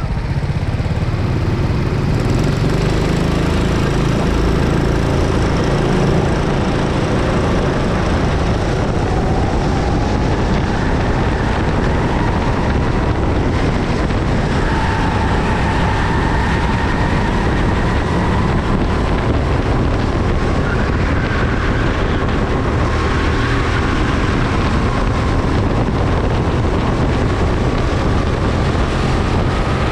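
Go-kart engine running hard on track, heard onboard, its note slowly climbing and dipping as the kart accelerates and slows, over a heavy rumble.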